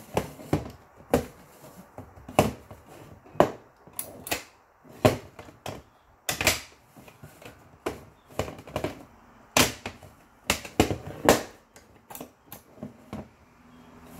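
Clear plastic airtight cereal container being handled on a hard countertop: a string of sharp, irregular clacks and knocks, roughly one a second, as it is moved, set down and its lid touched.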